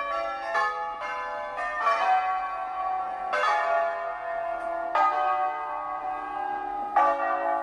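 Tower bells being played as a tune, heard close up from inside the bell tower. Notes are struck about every half second at first, then more slowly, about one every one and a half to two seconds, each ringing on under the next.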